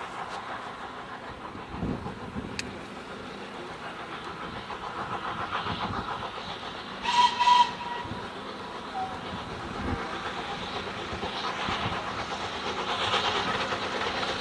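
M7 class 0-4-4 tank steam locomotive No. 30053 sounding a short double blast on its whistle about seven seconds in, over the beat of its exhaust, which grows louder as the train approaches.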